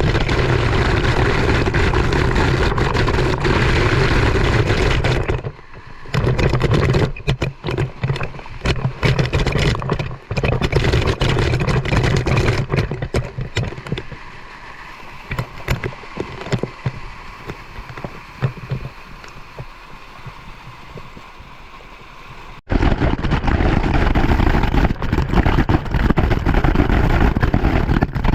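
Motorcycle on the move: engine running under wind noise on the microphone. The sound drops and comes and goes after about five seconds, is quieter for a stretch, then comes back loud suddenly near the end.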